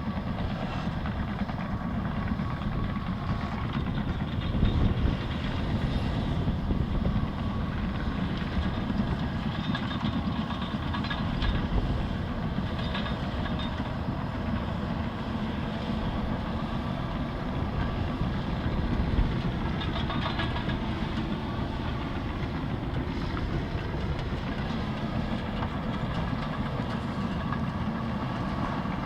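Liebherr 756 and 736 crawler bulldozers working: a steady heavy diesel rumble with the clanking and rattling of steel tracks. It swells about five seconds in and again a little before twenty seconds, and a whine glides up and down for a few seconds after that.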